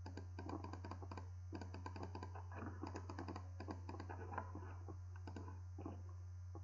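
Rapid, irregular runs of clicking from a computer keyboard and mouse, over a steady low electrical hum.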